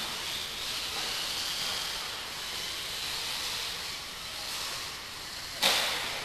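Electric radio-controlled off-road buggies running laps, heard as a steady high hiss and whine of motors and tyres, with one sharp knock about five and a half seconds in.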